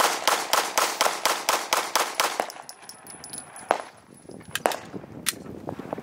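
Glock 45 9mm pistol fired rapidly, about a dozen shots at roughly five a second, emptying the magazine. A few fainter sharp sounds follow later.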